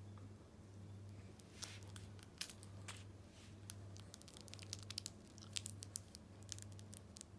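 Miniature poodle chewing and gnawing a plush carrot toy: irregular, faint sharp clicks and crackles of teeth on the fabric, starting about a second and a half in.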